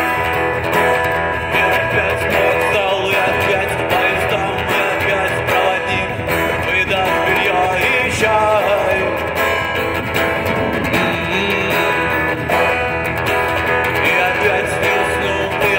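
Guitar-led music, plucked and strummed guitar playing steadily.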